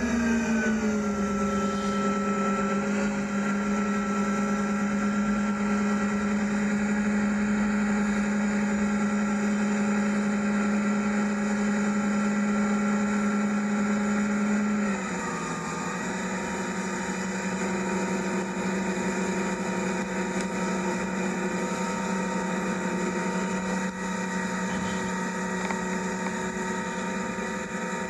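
Supercharged LSA V8 outboards of 627 hp running at speed, a steady engine drone. About halfway through the pitch drops to a lower, steady note and the sound gets a little quieter.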